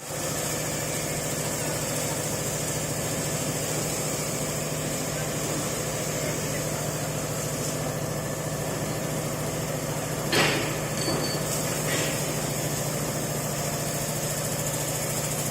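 Steady machine hum, with a knock about ten seconds in and a couple of lighter knocks after it.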